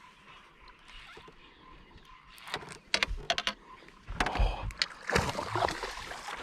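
A hooked big fish fighting at the surface beside a boat: a few sharp clicks and knocks, then from about four seconds in loud irregular water splashing with low thumps against the hull.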